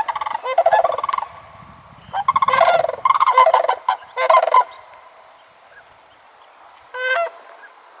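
Sandhill cranes calling: loud, rolling, trilling calls from several birds overlapping in two bursts in the first half, then a single short call near the end.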